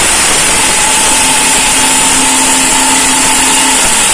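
Electric mixer grinder running at full speed, dry-grinding roasted black pepper and spices into a powder without water. A loud, steady motor whine.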